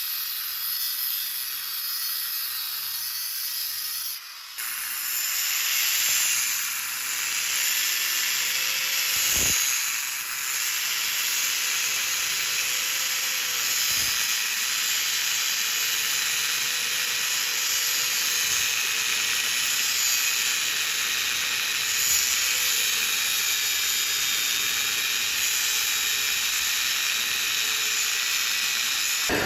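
Electric welding arc crackling and hissing steadily while a bead is laid. It breaks off briefly about four seconds in, restarts, and stops abruptly at the end.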